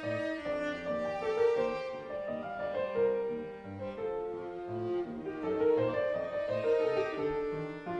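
Classical chamber music: a Stuart & Sons grand piano played together with bowed strings, with long held, wavering string notes over moving piano chords.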